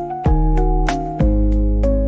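Chill pop music with no singing: a steady drum beat under held chords and a bass line that changes note a few times.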